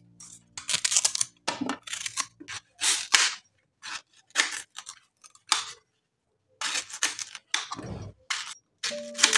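Knife cutting unripe plantain: a run of short, sharp chops at an uneven pace, about two a second, with a pause around the middle and a duller, lower thud about eight seconds in.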